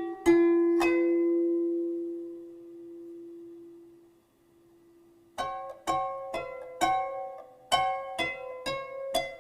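Background music of plucked string notes. A held note fades away over the first few seconds, and after a short lull the plucked notes start up again about five and a half seconds in, at roughly two a second.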